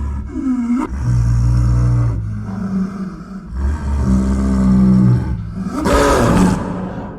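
A large animal calling in several deep, drawn-out calls, the last one harsher and louder, about six seconds in.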